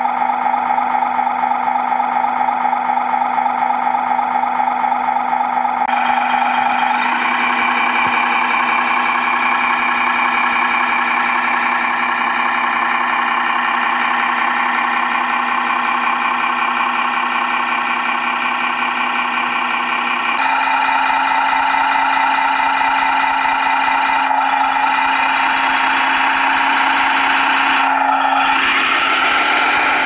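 Tamiya 1/14 Mercedes-Benz Actros RC logging truck driving, with a steady diesel-like engine sound. It steps up in pitch about seven seconds in, changes again about twenty seconds in, and briefly wavers near the end.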